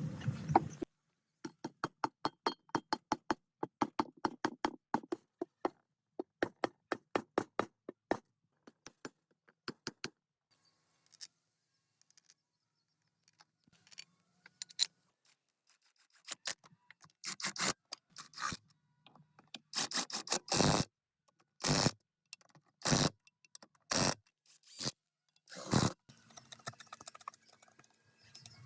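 Workshop hand-tool work on generator parts: quick runs of small sharp clicks, about three or four a second, then, after a pause, a series of louder single knocks.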